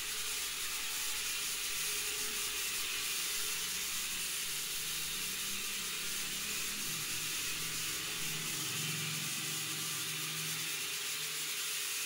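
Mini toy quadcopter in flight, its tiny motors and propellers giving a steady high hiss with a faint lower hum that wavers in pitch as the drone is steered.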